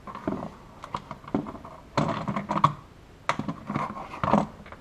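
Plastic push-in fasteners and a Honda Pioneer 1000's plastic body panel being handled: irregular clicking, scraping and rattling, in two clusters, about two seconds in and again toward the end.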